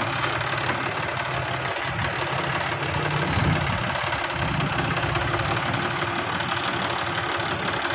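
John Deere 5310 tractor's three-cylinder diesel engine running steadily at idle, with a brief rise in engine speed about three seconds in.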